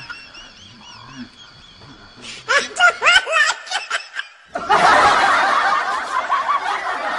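Laughter: a short run of choppy laughing about two and a half seconds in, then from about halfway a louder, continuous stretch of overlapping laughter.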